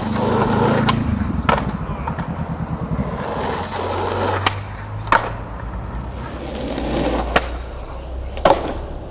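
Skateboard wheels rolling over rough asphalt, a steady rumble, broken by four sharp clacks of the board. The last two, near the end, fit the ollie pop and the landing of a jump over a guardrail.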